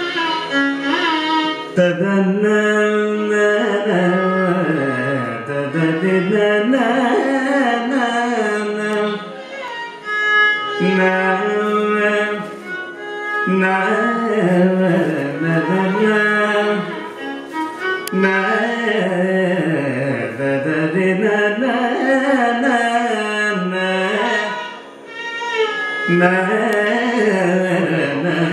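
Live Carnatic classical music: a male vocalist sings a melody full of gliding ornaments, with violin and mridangam accompaniment.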